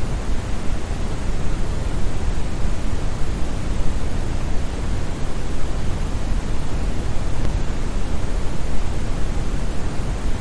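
Steady brown noise: an even, deep hiss with most of its energy in the bass, like a muffled waterfall.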